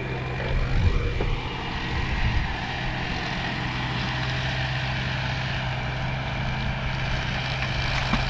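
A steady, low motor drone over a constant hiss.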